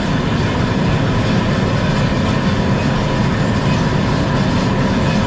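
Steady, loud running noise of a vehicle, a low rumble with a faint steady hum over it.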